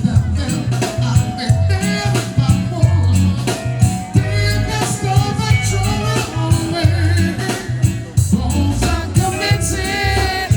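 Reggae song playing, with a heavy bass line and a singing voice.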